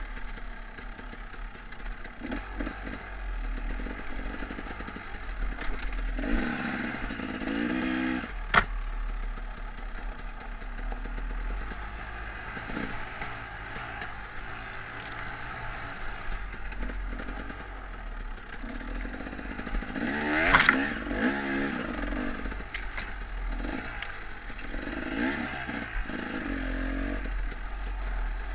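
KTM dirt bike engine running under a rider, its revs rising and falling repeatedly with the throttle. A sharp knock comes about eight seconds in and a louder crack about twenty seconds in.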